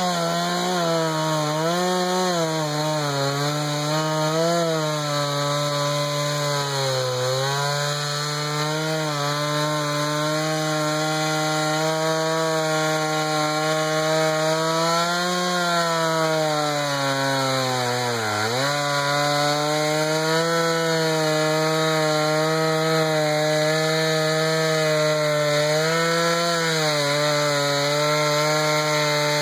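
Jonsered 2091 93 cc two-stroke chainsaw with a rip chain, mounted in a chainsaw mini mill and running at full throttle while ripping lengthwise through a pine cant. The engine pitch wavers with the feed and dips sharply once about two-thirds of the way through, as the saw bogs under load, then recovers.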